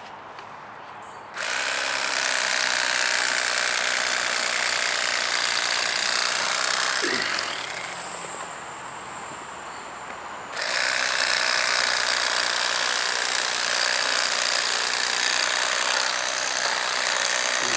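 Cordless Bubba Blade electric fillet knife running as it cuts through channel catfish. The motor and reciprocating blades run steadily from about a second and a half in, ease off about halfway through, then run again.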